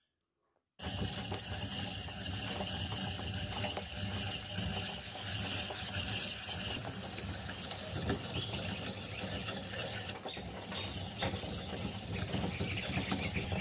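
Rotary coconut grater shredding the white flesh from a coconut half: a continuous rasping with a mechanical rattle, starting about a second in.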